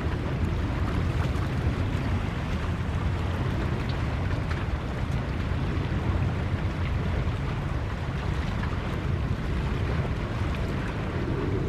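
Steady low rumble of wind buffeting the camera microphone, with the wash of sea surf under it.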